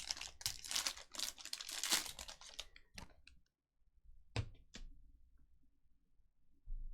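Foil trading-card pack wrapper crinkling and being torn open, a dense crackle for about two and a half seconds. It is followed by a few sharp clicks of cards being handled.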